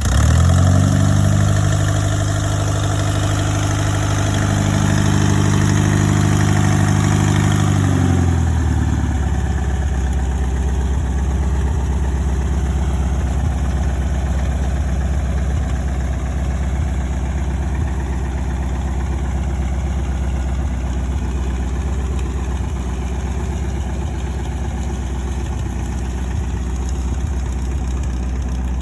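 AeroVee 2.1 air-cooled four-cylinder aircraft engine of a small biplane running just after start-up, at a fast idle for about eight seconds, then dropping to a lower, steady idle.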